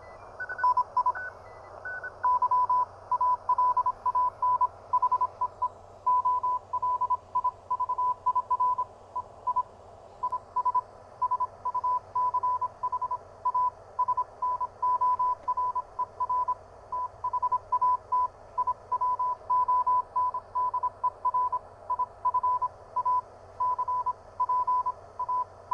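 Morse code (CW) from a pocket uSDR/uSDX-clone HF transceiver's speaker: a tone of about 1 kHz keyed on and off in dots and dashes over the radio's steady receiver hiss. A few higher-pitched beeps come in the first two seconds.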